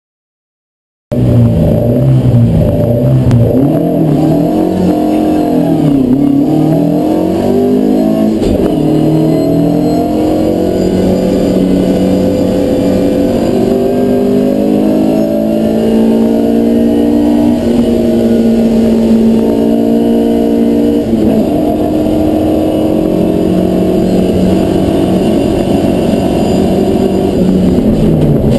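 Mk2 Lotus Cortina's Lotus-Ford twin-cam four-cylinder engine at full throttle on a hillclimb run, recorded on board. It starts abruptly about a second in, then the revs climb and drop back at each gear change, holding high through the middle of the run.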